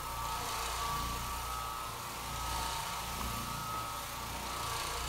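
Oreck Orbiter orbital floor machine running, its red cleaning pad buffing a hardwood floor: a steady electric motor hum with a thin high whine.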